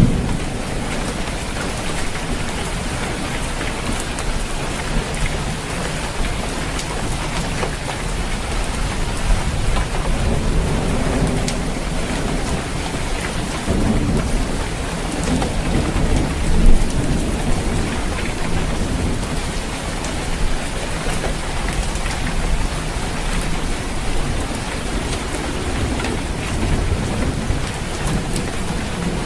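Steady rain falling on a roof, with low thunder rumbling and swelling a few times, most strongly about halfway through.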